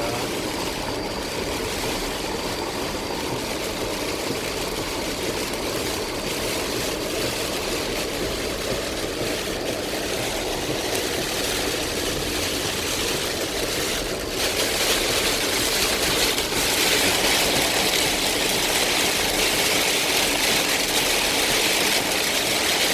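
Car driving through heavy rain, its engine and tyres running steadily on a flooded road. About fourteen seconds in the rain on the car suddenly grows heavier, a loud steady hiss that lasts to the end.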